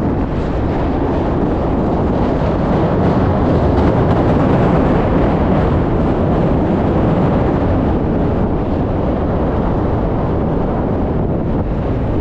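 Wind rushing over the microphone while riding, a steady loud rush of noise that swells a little in the middle.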